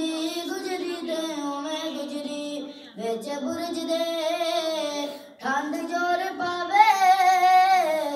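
Children singing a devotional song unaccompanied, in long held phrases that break briefly for breath about three seconds and five seconds in.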